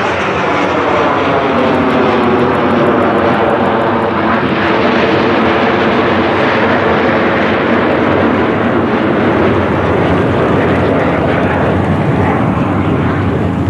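Several Aermacchi MB-339 jet trainers flying past in formation, their Viper turbojets giving a loud, steady jet noise whose pitch sweeps as the aircraft pass.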